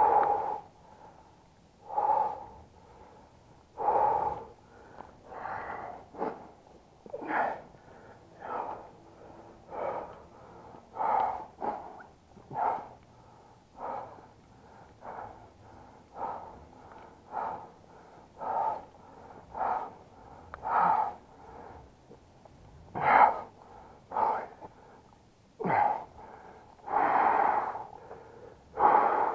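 A person breathing hard while running, in loud, ragged breaths about once a second.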